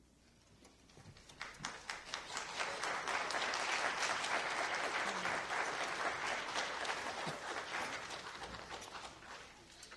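Audience applauding a concert band, building up about a second in, fullest in the middle and thinning out toward the end.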